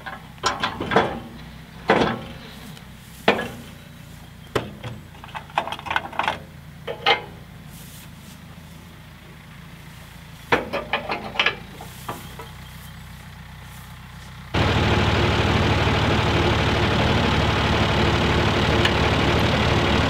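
Sharp metal clanks and bangs, singly and in quick clusters, as the corn head of an old forage harvester is pulled and levered off, over a steady engine idling in the background. About two-thirds through, the sound cuts abruptly to a louder, steady tractor engine running close by.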